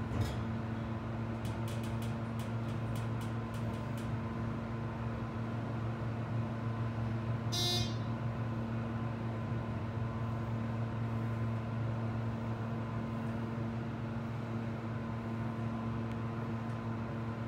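ThyssenKrupp elevator car travelling down, with a steady hum in the cab. There is a run of light clicks around two to four seconds in, and a short chime about eight seconds in as the car reaches the main floor.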